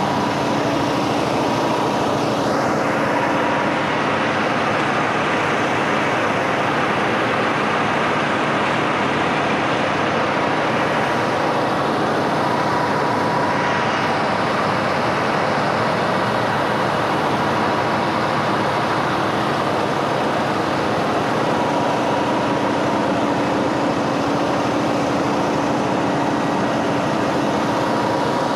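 Mahindra truck's diesel engine running steadily, with exhaust smoke escaping around its failed diesel particulate filter (DPF) canisters.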